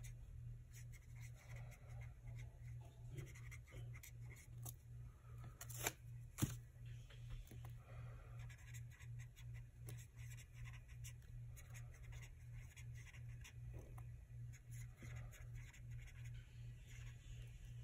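Faint scratchy strokes of a marker pen writing on planner paper, with two sharp clicks about six seconds in and a steady low hum underneath.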